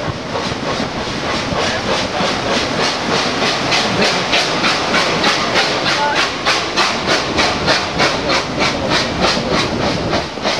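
Steam paddle steamer PS Waimarie under way: a rapid, even chuffing beat of about four strokes a second over a steady hiss, from its steam engine and paddle wheels.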